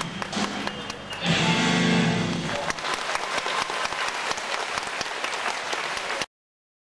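Performance music ends on a loud held final chord about a second in, followed by audience applause. The applause cuts off abruptly near the end.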